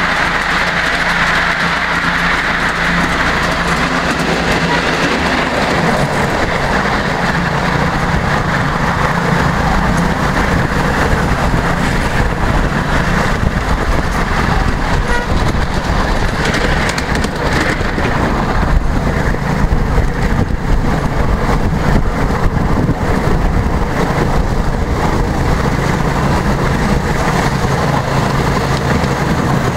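Miniature railway train running along the track, heard from a riding car: a steady rumble of small wheels on the rails. For the first few seconds it runs through a short tunnel, then out in the open.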